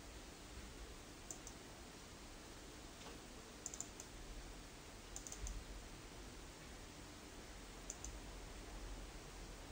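Computer mouse buttons clicking in quick pairs and triples, like double-clicks, four times over a few seconds, over a faint low hum.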